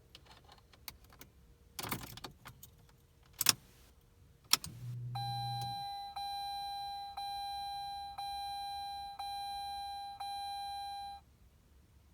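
Car keys jingling and a few sharp knocks. Then the 2003 Mazda 6's warning chime dings steadily about once a second for six seconds, with a brief low hum as it begins. The engine is not cranked here.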